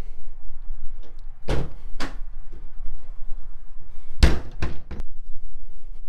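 Wooden chicken coop door being shut: two knocks, then a louder slam about four seconds in, followed by two quicker knocks.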